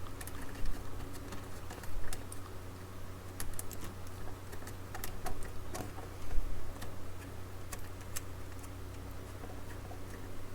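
Irregular light clicks and taps from hands working speaker wires and terminals, over a steady low hum.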